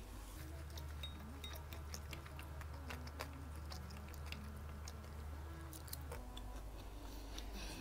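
Close-miked chewing of a seaweed-wrapped rice roll (kimbap): soft, irregular wet clicks and smacks of the mouth over a low steady hum.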